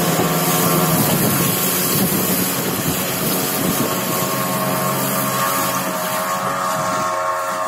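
A river longboat's engine running steadily at cruising speed, with the rushing hiss of wind and water as the boat moves.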